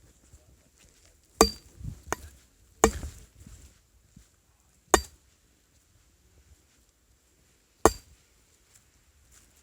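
Five sharp knocks at uneven spacing, each with a brief ring, with quiet between them.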